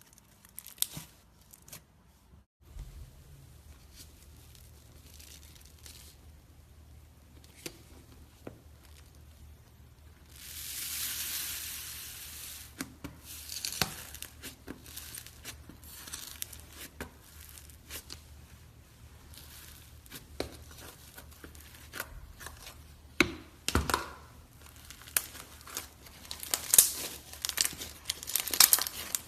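Iceberg slime being poked and squeezed, its hardened top crust crackling and crunching in quick sharp clicks. A longer rustling crunch comes about ten seconds in, and the crackling grows dense and louder near the end.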